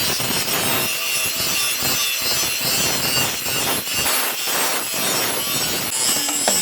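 Hand tool rasping back and forth in steady repeated strokes, like a saw or file working material.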